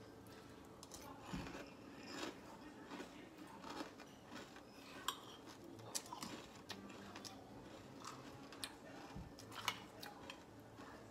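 Someone quietly eating Frosted Flakes cereal in milk: soft chewing and crunching, with a metal spoon clicking against a ceramic bowl now and then.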